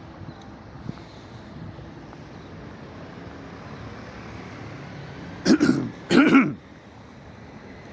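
A person close to the microphone coughs twice, two short loud coughs less than a second apart a little past halfway through, over a steady outdoor background hiss.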